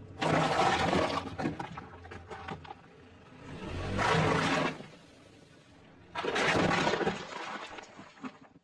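A car tyre rolling over and crushing objects: a row of coloured ice cubes and a row of full soda cans crunching and bursting under the wheel. There are three loud crunching bursts a couple of seconds apart, with lighter crackling between them.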